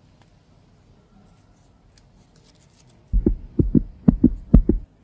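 A heartbeat sound effect: a quick run of about eight low thumps in lub-dub pairs, starting about three seconds in.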